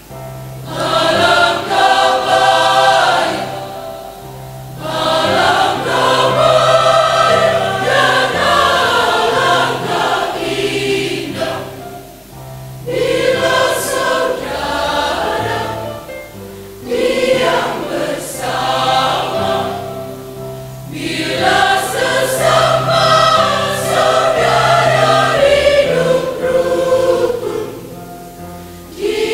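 Women's choir singing an Indonesian Christian hymn in full harmony, in phrases with brief breaks between them.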